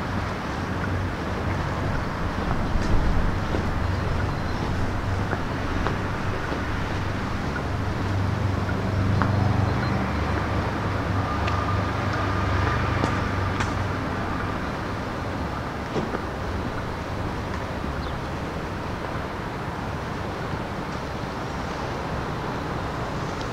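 Street traffic noise: a motor vehicle's engine hum over steady road noise, strongest about a third of the way through, then easing to a steady, slightly quieter background.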